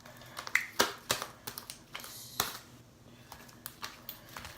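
Sticky slime being squished and stretched by hand, giving irregular clicks and pops.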